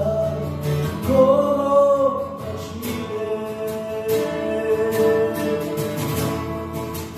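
A man singing a slow ballad to his own strummed acoustic guitar, holding long sung notes over steady strumming.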